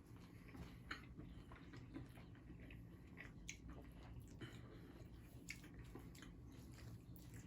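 Faint close-up chewing of a soft sandwich of chicken tender and fries, with small mouth clicks scattered throughout.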